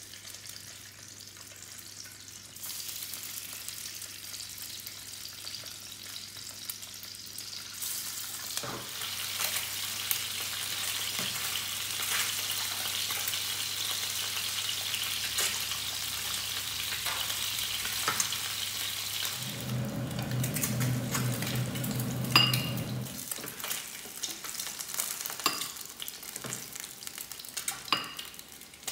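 Peeled hard-boiled eggs sizzling in hot oil in a frying pan, with the hiss swelling a few seconds in and strongest through the middle. A metal spoon clinks against the pan several times as the eggs are turned and lifted out, and a short low hum comes in about two-thirds of the way through.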